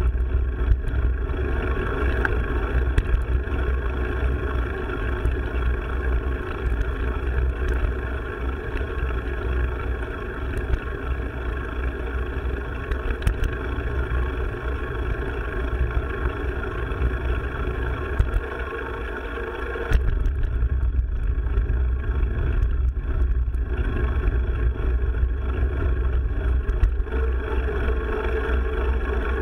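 Wind rumble on the microphone and rolling trail noise from a mountain bike being ridden; it eases briefly about two-thirds of the way through, then picks up again.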